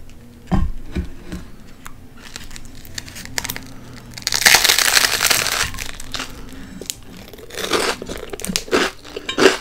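Biting into a slice of crusty toasted bread topped with mashed avocado and red onion: a loud crunching tear about four and a half seconds in, then crunchy chewing near the end. A short dull thump about half a second in.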